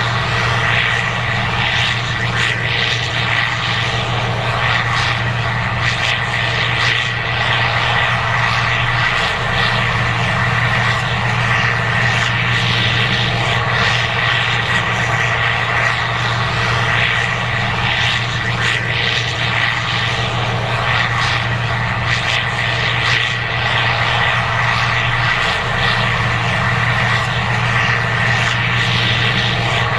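Case IH 2188 Axial-Flow combine running steadily while harvesting corn: a constant low engine hum with a steady high whine over the machine noise.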